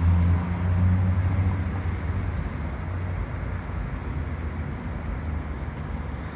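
Road traffic rumble with a low engine drone, loudest in the first second or so and then easing off to a steady background.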